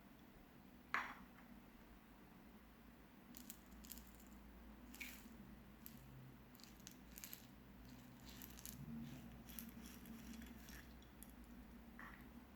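Clear slime with colored rice mixed in being handled, giving faint squishing and scattered crackling clicks, with one sharper click about a second in.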